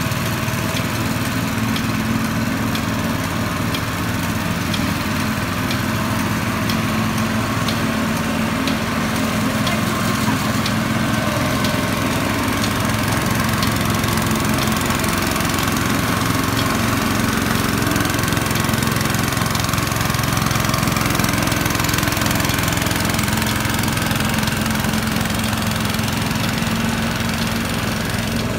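Small single-cylinder petrol engine of a ride-on road line marking machine running steadily as the machine is driven along, with a faint regular ticking through the first half.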